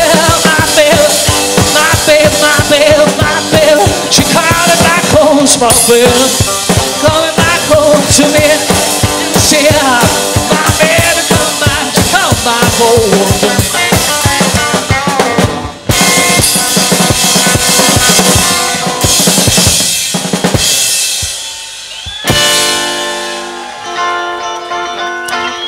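Live rockabilly trio of electric guitar, upright bass and drum kit playing with a fast, driving drum beat. About sixteen seconds in the beat drops out for a moment, and near the end held chords ring and slowly die away.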